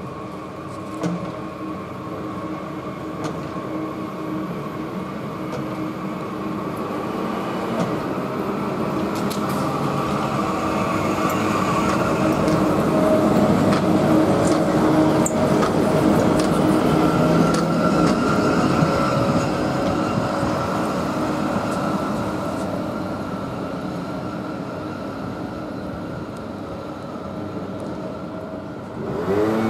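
Translohr rubber-tyred guided tram running past: a steady electric hum with rolling tyre noise. It builds as the tram approaches, is loudest about halfway through as it passes close by, then fades as it moves away.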